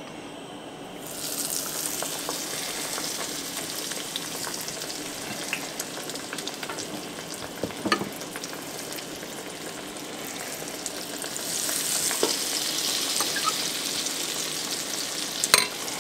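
Battered bluegill fillets sizzling and crackling in hot oil in a cast-iron skillet. The sizzle jumps up about a second in and swells again about three quarters through as more fillets go into the oil, with a few sharp clicks and knocks.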